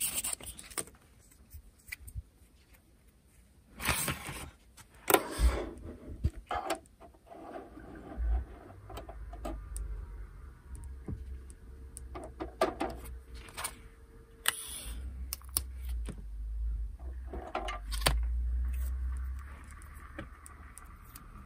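Small clicks and taps with stretches of scraping and rubbing, as tools and small plastic parts are worked on a ship model at a workbench.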